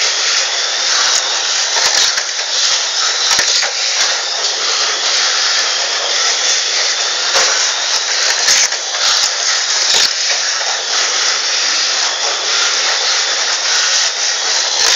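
Tamiya Mini 4WD cars running round a plastic multi-lane track: a steady high-pitched whir from their small electric motors, with scattered sharp clicks and knocks.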